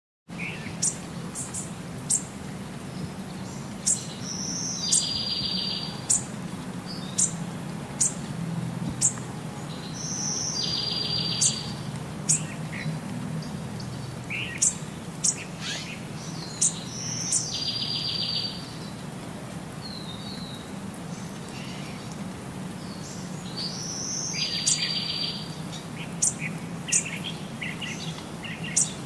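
Birds chirping: short, sharp high chirps scattered throughout, with a buzzy trill of about a second repeating roughly every six seconds, over a steady low hum.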